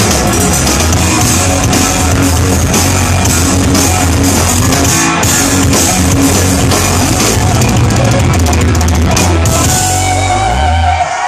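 Live hard-rock power trio playing loudly: distorted electric guitar, bass guitar and a pounding drum kit, heard from within the audience. The heavy bass and drums stop about ten and a half seconds in as the song finishes.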